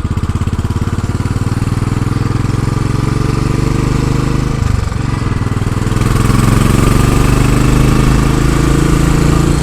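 Royal Enfield Classic 500's single-cylinder engine running steadily under way. The engine note dips briefly about five seconds in, then picks up again and runs louder.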